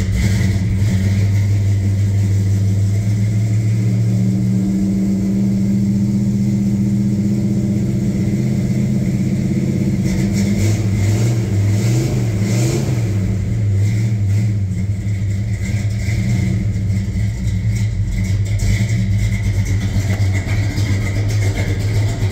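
A 1967 Plymouth Barracuda Formula S's 383 big-block V8, fitted with a replacement camshaft, idling steadily. Its revs waver briefly about halfway through.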